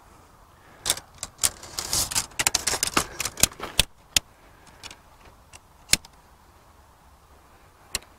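Sections of an alloy tent pole clacking and clicking together as the pole is unfolded and fitted: a quick flurry of clicks in the first four seconds, then single clicks every second or two.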